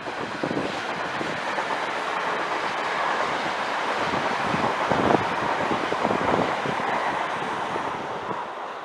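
A train passing on the line: a rushing rumble of wheels on rail that builds, peaks with a few sharp knocks about five seconds in, and then fades away.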